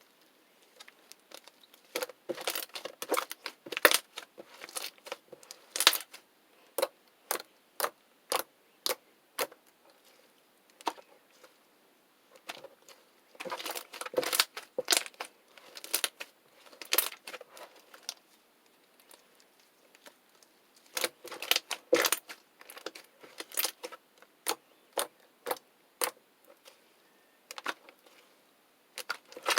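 Slime being pressed and played with by hand, giving crisp clicking and popping sounds, some single and some in quick runs, with short pauses between.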